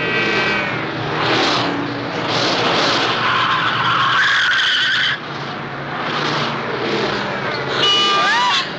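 Film sound effects of fast freeway traffic: cars rushing past one after another, with a horn sliding down in pitch as it passes at the start. Tires screech loudly for about two seconds in the middle, then cut off suddenly, and another screech comes near the end.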